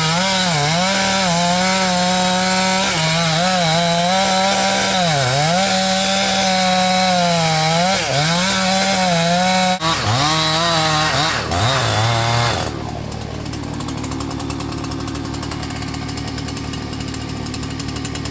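Two-stroke chainsaw cutting through a large tree trunk at high revs, its engine pitch sagging briefly again and again as the chain bites into the wood. About ten seconds in, the revs fall away, and after about twelve seconds the sound drops to a quieter, steadier running.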